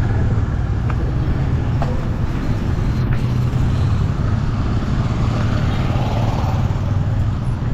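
Steady road-vehicle noise, dominated by a constant low engine-and-road hum.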